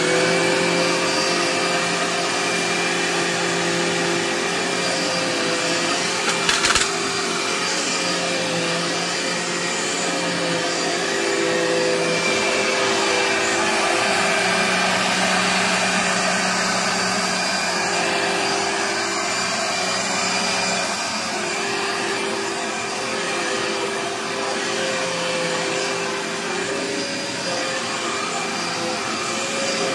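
Dirt Devil Breeze bagged vacuum cleaner running steadily under load during a dirt pickup test, its motor giving a steady whine. A brief knock sounds about seven seconds in.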